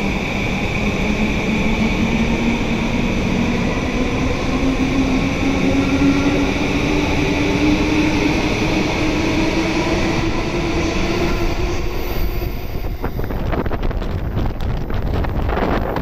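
Electric commuter train pulling away on a nearby track, its motor whine rising slowly in pitch as it gathers speed, over a heavy wind rumble on the microphone. The whine fades about eleven seconds in, and gusty wind buffeting on the microphone takes over near the end.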